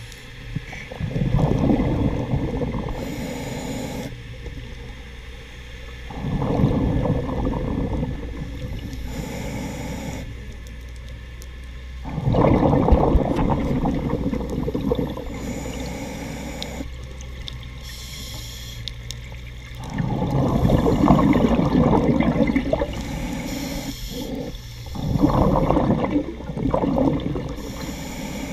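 Scuba diver breathing through a regulator underwater: five bursts of rushing, bubbling exhalation a few seconds apart, with quieter inhalation hiss between them.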